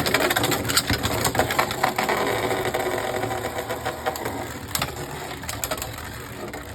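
Two Beyblade Burst spinning tops whirring in a plastic stadium, with frequent sharp clacks as they collide. The clashes come less often and the whir grows slightly quieter toward the end as the tops lose spin.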